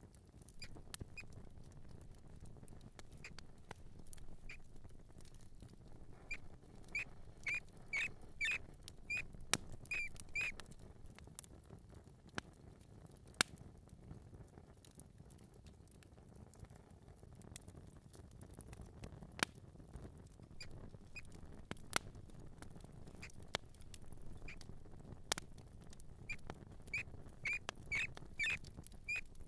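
Mouse squeaking: short, high chirps in quick clusters, thickest about a quarter of the way in and again near the end, with scattered sharp clicks between them.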